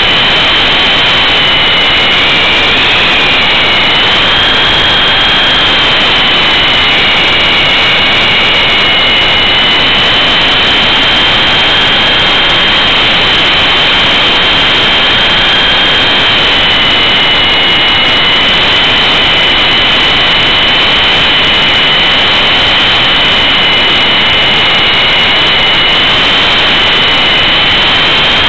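E-sky Big Lama coaxial RC helicopter's electric motors and rotors heard from a camera on board: a loud, steady high-pitched whine with a fainter lower whine beneath it, both pitches drifting slightly up and down, over rushing rotor wash.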